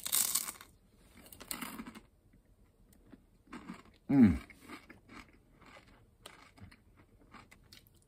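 Fried chicken-skin crackling bitten with a loud crunch, then chewed with a string of smaller, softer crunches. About four seconds in there is a short, falling, closed-mouth "mmm" of enjoyment.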